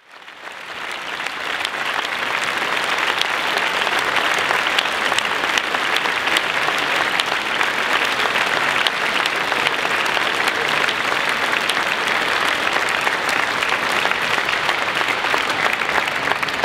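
Large audience applauding steadily, a dense patter of many hands clapping that fades in over the first couple of seconds and begins to fade out at the very end.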